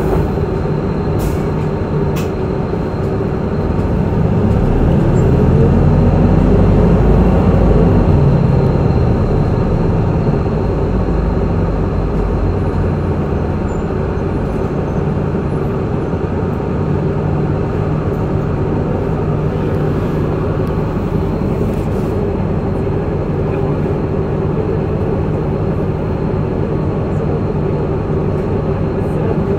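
Route bus driving, its engine running steadily. About four seconds in, the engine note swells and rises as the bus accelerates, then eases back to a steady cruise.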